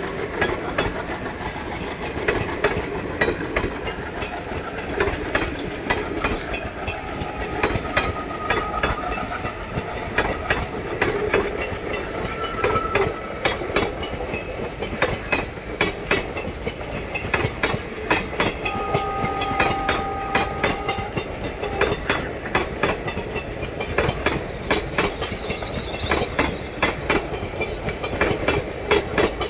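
Indian Railways passenger coaches rolling past close by, their wheels clattering in a steady clickety-clack over the rail joints.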